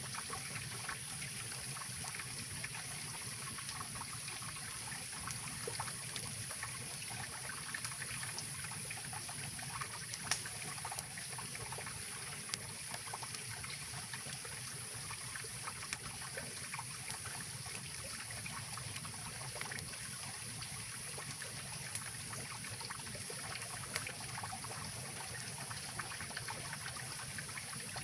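Mountain river flowing steadily, an even rush of water, with a campfire crackling and snapping now and then.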